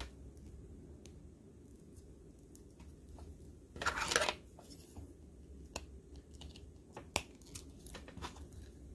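Small plastic action-figure parts and accessories clicking and tapping as they are handled, with a brief louder scrape about four seconds in as a piece is taken up from the tabletop.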